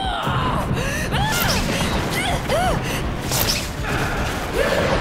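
Giant-hero fight sound effects: short arching pitched cries, whooshes and a couple of hits, over dramatic background music.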